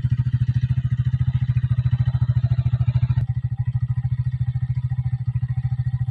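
A small engine running steadily with a fast, even putting beat. The higher hiss above it drops away about three seconds in.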